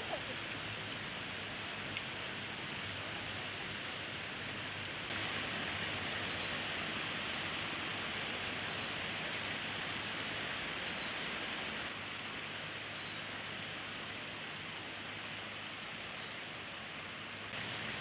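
Steady rushing outdoor noise with no distinct bird calls; it steps louder about five seconds in and drops back about twelve seconds in.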